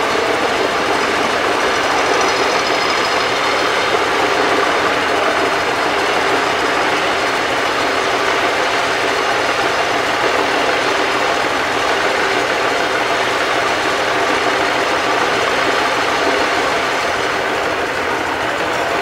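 Foden OG lorry's exposed diesel engine running steadily on the bare chassis.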